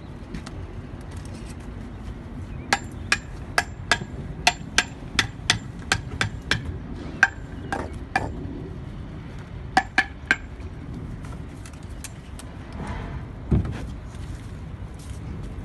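Steel mason's trowel tapping on concrete block as a block is set in its mortar bed: a run of about a dozen sharp, ringing clinks, two or three a second, then three more a few seconds later. A single dull thud comes near the end.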